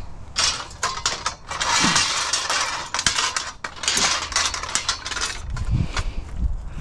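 Thin black metal gazebo frame struts clattering and rattling against each other as they are gathered up by hand, in several bursts with the densest rattle about two seconds in and again near the end.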